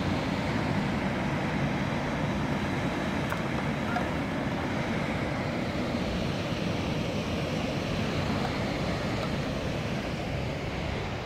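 Surf breaking and churning on the rocks below a sea cliff, heard as a steady wash of noise, with wind rumbling on the microphone.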